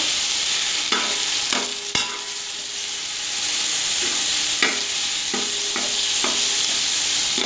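Raw chicken pieces sizzling in hot oil with ginger-garlic paste in a large metal pot, a steady frying hiss. A metal spatula stirs the chicken and scrapes and knocks against the pot about eight times, each stroke ringing briefly off the metal.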